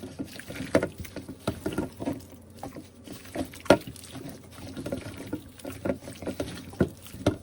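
Hands working wet marinade into raw chicken pieces: irregular wet squelches and slaps of the meat, with a couple of louder smacks, one about halfway through and one near the end.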